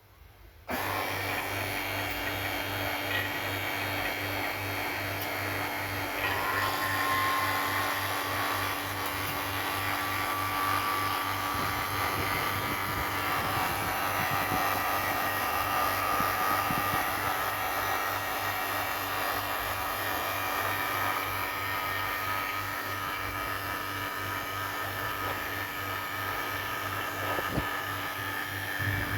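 An electric motor-driven machine switches on about a second in and runs steadily, with a low pulsing hum under a hissing whirr.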